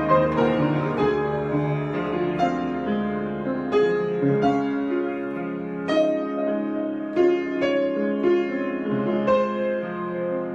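Piano improvisation: unhurried notes and chords struck every half-second to a second and left to ring.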